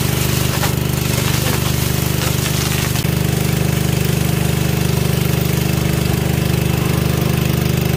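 Pressure washer running steadily for water-washing a platform deck: a loud motor hum with a fast, even pulsing.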